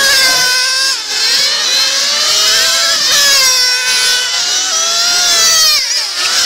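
Several radio-controlled model race cars' motors whining at high revs, their pitches overlapping and rising and falling as the cars speed up and slow for the corners, with sharp drops in pitch about a second in, around three seconds and near the end.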